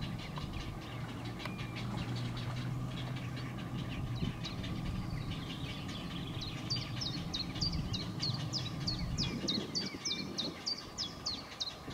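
A bird calling in a rapid run of short, high notes, about three or four a second, starting about halfway in, over a steady low rumble.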